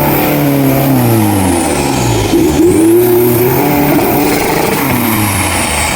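Off-road 4x4 vehicle engine revving hard, its pitch falling, climbing again about two and a half seconds in, then falling away as the throttle is worked.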